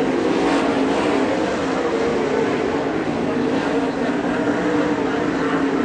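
Several 410 sprint cars' V8 engines running together at racing speed, blending into a steady, wavering drone with no let-up.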